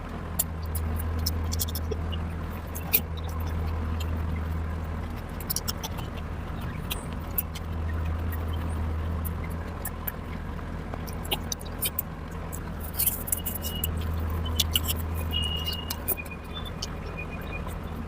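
Close-up eating sounds: many short, sharp chewing and lip-smacking clicks from someone eating mutton curry, over a steady low hum.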